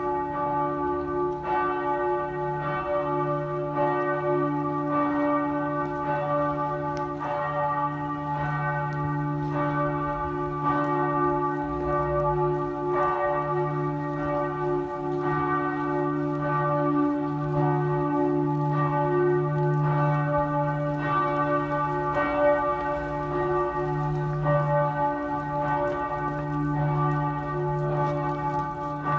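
Regensburg Cathedral's church bells ringing in a peal, strokes falling about once a second in an uneven, overlapping rhythm over a deep hum that never dies away.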